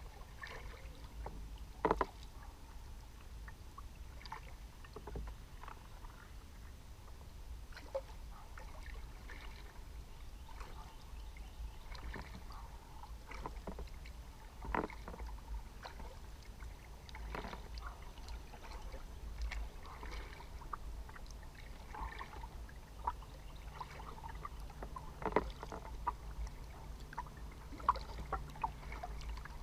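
Kayak paddle strokes dipping into the river: irregular soft splashes and drips every couple of seconds over a steady low rumble.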